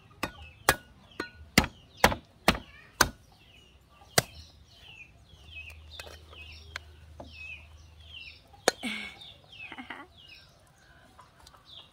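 A heavy cleaver chopping into a fresh green coconut, with about eight sharp chops in the first four seconds or so, followed by a few lighter knocks later on. Faint short high chirps sound in between.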